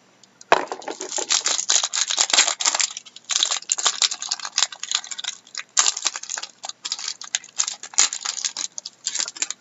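Crinkling and crackling of a trading-card pack's wrapper being torn open and handled, in irregular bursts with a short lull about three seconds in.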